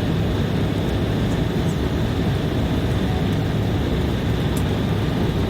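Steady cabin noise inside an Embraer E190 airliner in flight: an even rush of engine and airflow noise.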